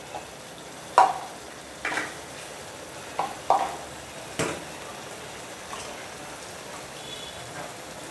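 Curry spice paste sizzling in hot oil in a steel pan, with a metal spatula scraping and knocking against the pan about five times in the first half.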